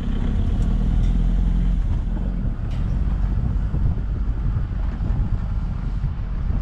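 Open safari vehicle's engine running as it drives along a rough dirt track, a steady low rumble with wind noise on the microphone.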